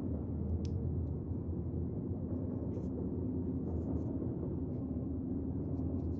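A steady low hum with a few faint small clicks scattered through it.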